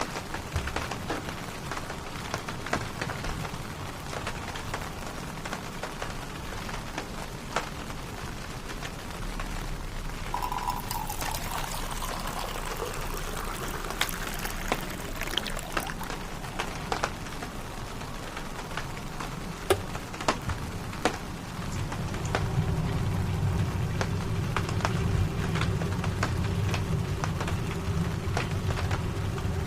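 Rain pattering steadily on a tent, with scattered drips tapping close by. About a third of the way in, liquid is poured, as coffee into a cup. Later a low steady hum comes in under the rain.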